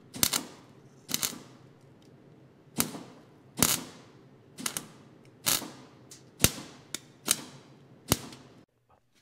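MIG welder laying short tack welds on thin steel grill mesh: about nine brief crackling bursts, each starting with a sharp pop, roughly a second apart.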